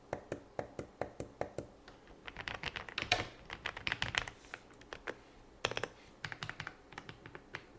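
Typing on an AULA F99 Pro mechanical keyboard with linear switches: a few separate keystrokes, then quick runs of rapid key presses.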